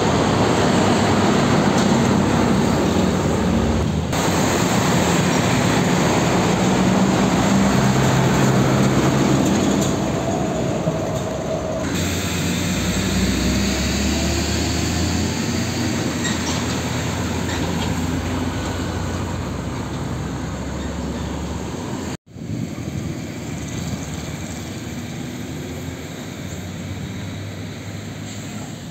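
Diesel engines of old UD Nissan Diesel trucks running as they drive past, mixed with road and traffic noise. The sound changes abruptly three times as one passing truck's recording gives way to the next, and a deep low rumble dominates the middle part.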